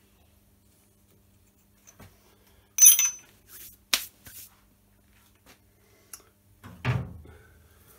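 Steel machine-tool parts being handled: a loud ringing metal-on-metal clatter about three seconds in, a sharp click about a second later, and a duller knock near the end.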